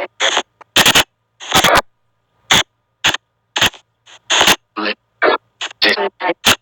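Spirit box (ghost box) app on a phone playing short, abruptly chopped bursts of hiss and garbled sound, roughly one or two a second, with silent gaps between them.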